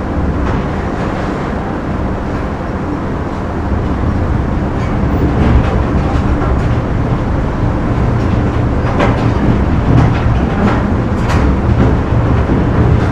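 Factory machinery noise: a steady heavy low rumble and hum, with scattered short metallic knocks and clanks. It grows louder about four seconds in.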